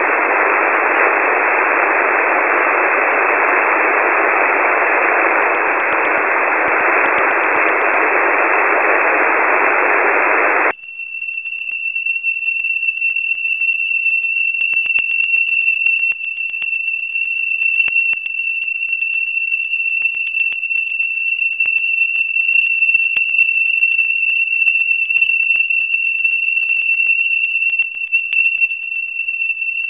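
Shortwave receiver in upper-sideband mode giving out a steady static hiss for about ten seconds. It then cuts off abruptly to a single steady high whistle with scattered crackling clicks as the receive filter is narrowed to zero width.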